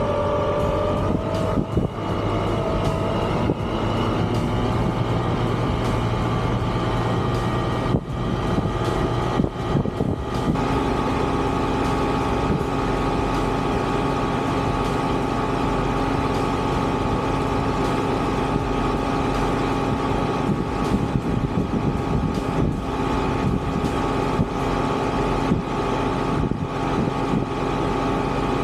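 Hangkai 48V 1200 W electric outboard motor running overvolted on a 72-volt battery. It spins up with a rising whine over the first second or so, then holds a steady whine as the boat runs, over a constant rush of water noise.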